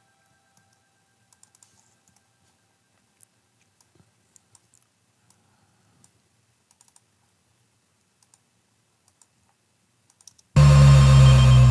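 Faint, scattered clicks of a computer keyboard for most of the stretch. About ten and a half seconds in, a loud synthesized sound effect plays back for about two seconds: a deep tone under higher tones that glide upward, then cuts off.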